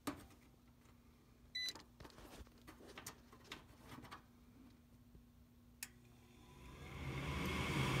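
A few light handling clicks and a short beep about a second and a half in. About seven seconds in, the furnace's draft inducer motor starts and spins up into a steady whir: the first step of the heat call, which pulls the pressure switch in.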